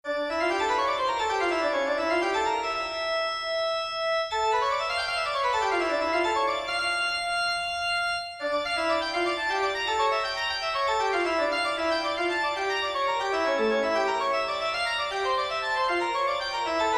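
Background music on a keyboard instrument with an organ-like sound: fast runs of notes sweeping up and down over held notes, with a brief break about eight seconds in.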